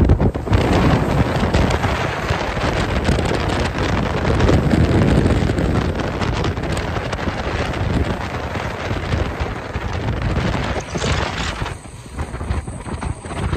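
Wind buffeting the microphone on a fast-moving motorboat, over the rush of water from its wake. The noise eases for a moment near the end.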